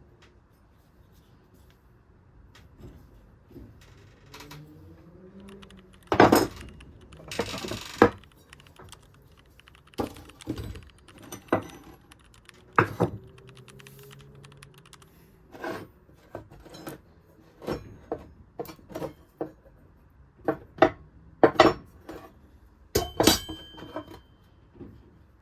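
Irregular clinks and knocks of small hard metal objects being handled and set down, about a dozen sharp strikes, with a short scraping rush about seven to eight seconds in.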